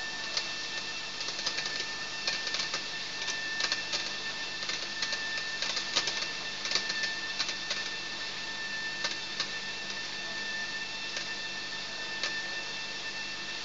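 Dried-chili color sorter running: a steady machine hum with two high, steady whistling tones. Irregular sharp clicks come as the chilies pass through, thick in the first half and sparser later.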